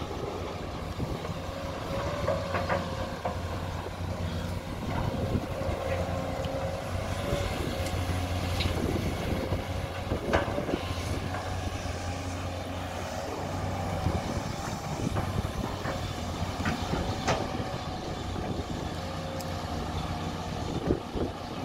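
SANY SY215C hydraulic excavator's diesel engine running steadily under load through a dig, swing and dump cycle, with a higher steady whine over the low engine hum. Sharp knocks and clunks come now and then as the bucket digs and drops soil into the dump truck's bed.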